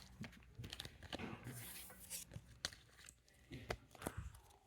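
Foil Pokémon card booster pack wrapper crinkling and tearing, with light clicks and ticks of cards being handled.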